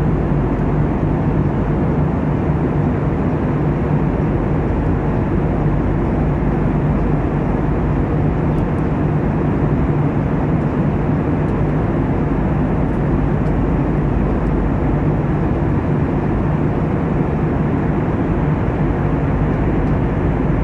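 Steady cabin noise of a passenger airliner in flight: engine and rushing air, with a low hum underneath.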